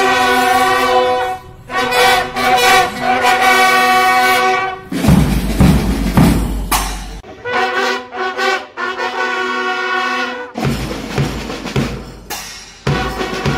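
Brass horn band playing long held notes together, alternating with passages of side drum and cymbal beats.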